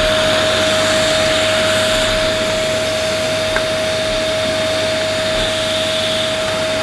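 Dyson DC11 canister vacuum cleaner running steadily: one high, steady motor whine over rushing air. It is sucking through a turbine brush head held against the end of the wand without an adapter.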